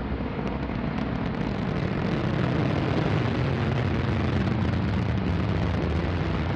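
Antares 230 rocket's first stage, with its two RD-181 engines, firing in ascent: a steady, deep roar of rocket exhaust.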